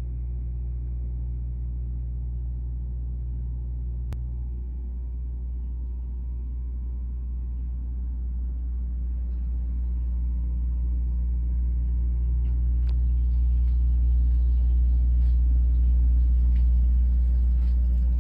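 Steady low hum of the yacht's onboard engine running, growing somewhat louder over the second half.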